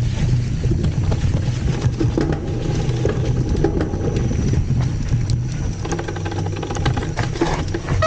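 Polygon Xtrada 7 mountain bike rolling down a dirt trail: a steady rumble of tyres on dirt with scattered clicks and rattles from the bike.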